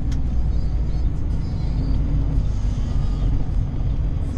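Steady low road and engine rumble inside a truck cab cruising at freeway speed, with music from the radio faintly underneath.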